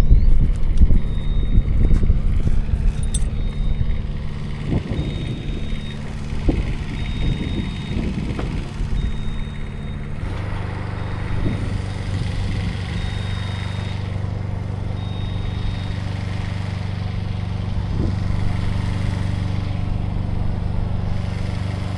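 Machine engine running steadily, its note firming up about ten seconds in, with a short high beep repeating every second or two like a travel alarm, which stops a few seconds later. A few scattered knocks.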